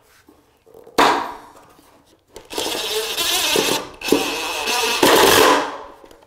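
Cordless impact driver driving pocket-hole screws to join boards: three bursts of rapid hammering rattle, the last the loudest and longest, after a single knock about a second in.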